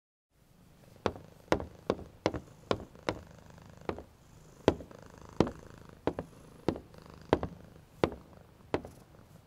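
Footsteps of boots on a wooden floor, one after another, as people walk past, over a cat's low steady purr.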